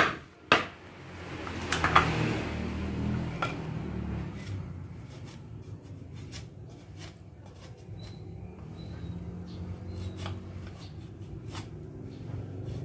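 Curved machete blade chopping and shaving bamboo slats: a few sharp knocks in the first few seconds, then lighter, irregular ticks and scrapes as the strips are trimmed. A low steady rumble runs underneath from about a second in.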